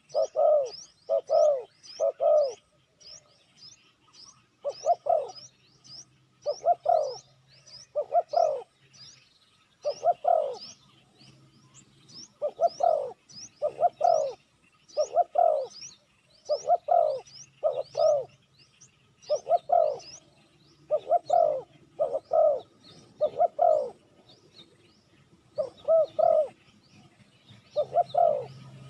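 Spotted dove cooing repeatedly in short phrases of two or three notes, with gaps between phrases. A small bird chirps quickly and steadily above it, about three high chirps a second.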